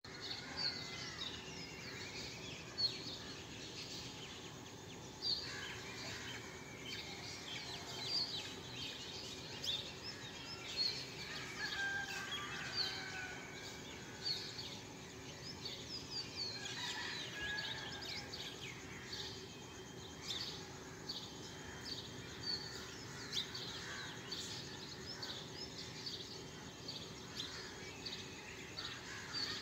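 Many birds chirping and calling over a steady low background noise.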